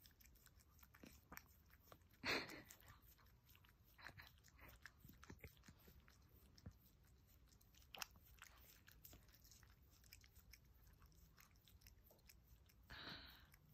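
Chihuahua licking a person's face: faint, wet lapping and smacking clicks, with a louder burst about two seconds in.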